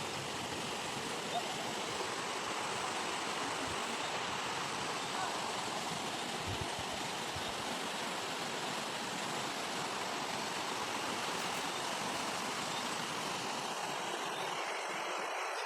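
Steady rush of fast-flowing river water, an even hiss with no breaks; its low part drops away near the end.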